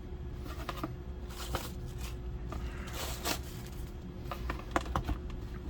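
Packaging being handled: intermittent rustling, scraping and light knocks as items come out of the soldering iron's box, over a steady low hum.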